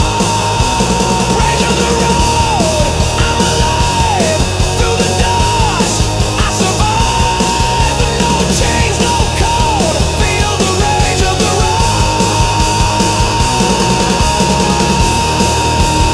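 Loud rock music with a steady heavy beat. A lead line holds long high notes, each one sliding down in pitch as it ends.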